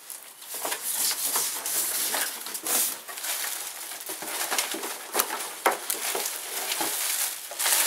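Plastic packaging rustling and crinkling with scattered light clicks and knocks as bagged accessories are handled.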